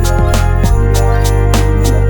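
Background music with a steady beat: quick, evenly spaced percussion ticks over sustained bass notes.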